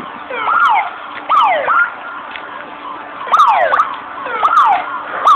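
Emergency vehicle sirens sounding in a fast repeating cycle: each rises quickly, then falls in pitch, about once a second.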